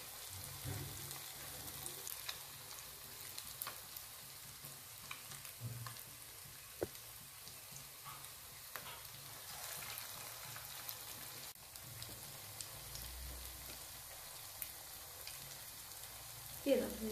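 Fish cutlets of mashed fish and gram flour frying in hot oil in a kadai: a steady sizzle with scattered small pops and crackles.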